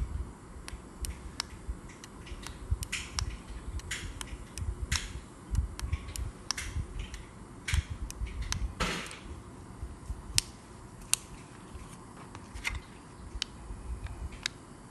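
Irregular small plastic clicks as the buttons of handheld gate remote fobs are pressed and the fobs are handled, with a brief scraping rustle about nine seconds in.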